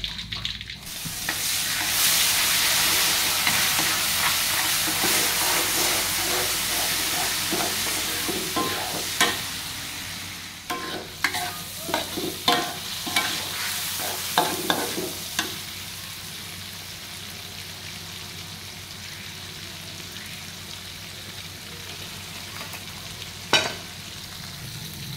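Sliced tomatoes frying in hot oil in a wok, sizzling loudly from about a second in, the sizzle slowly dying down. In the middle a metal spatula scrapes and knocks against the wok several times as the tomatoes are stirred, then the frying goes on as a quieter steady sizzle.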